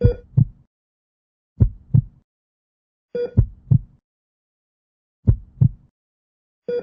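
A person coughing in double coughs, two quick coughs at a time, repeated about every one and a half to two seconds, with a fifth pair starting near the end.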